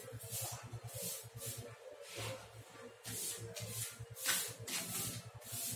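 Small single-cylinder motorcycle engine idling with an even low putter, about ten beats a second. Short hisses come and go on top of it about twice a second.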